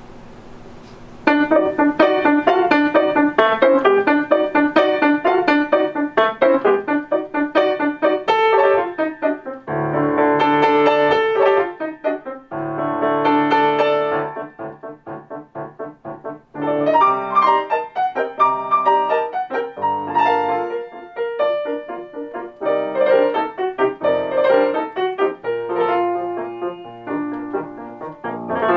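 Yamaha grand piano being played, starting about a second in: a quick, busy modern-style piece of rapid note runs broken by held chords, with a couple of short pauses.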